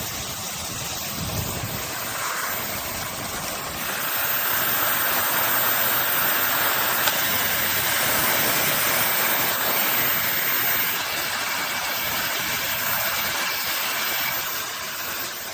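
Hair dryer air styler blowing air: a steady rushing noise that gets louder about four seconds in, then eases a little around eleven seconds.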